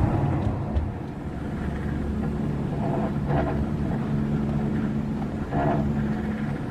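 Hakone Tozan cable car running up its track toward the station, a steady low hum, with two short higher-pitched sounds about three seconds in and near the end.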